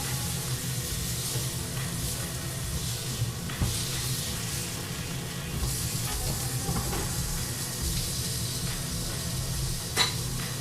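Meat sizzling as it fries in a pan, a steady hiss over a low hum, with one sharp click about ten seconds in. The meat is overcooking to the point of burning.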